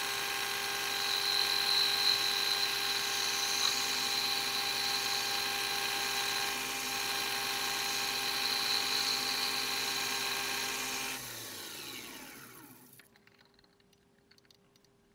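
Mini lathe running with a steady motor whine and a hiss of cutting while a mild-steel washer is turned down into a spacer. About eleven seconds in the lathe is switched off and its whine slides down in pitch as it spins to a stop, fading to near silence.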